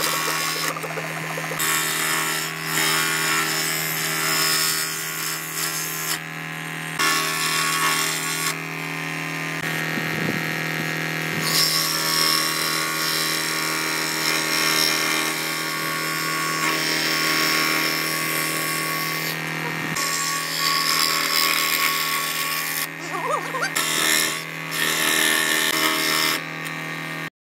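Ryobi 405 mm scroll saw running, its reciprocating blade cutting thin wooden strips: a steady motor hum under the rasp of the blade in the wood. The sound changes abruptly several times.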